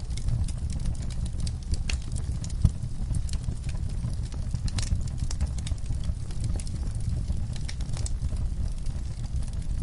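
Wood fire crackling and popping: frequent irregular sharp pops over a steady low rumble of the flames, with one louder pop about two and a half seconds in.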